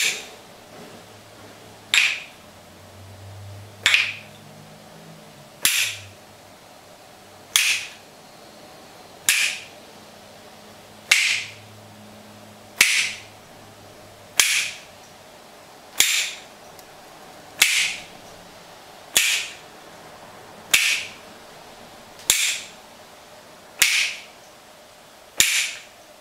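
Cup-and-ball toy: the ball snapped into the wooden cup with a sharp clack, repeated at an even pace about every second and three quarters, sixteen catches in all.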